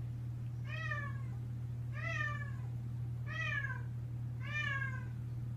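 A cat meowing over and over, four calls evenly spaced about a second and a quarter apart, each one dropping in pitch at the end, over a steady low hum.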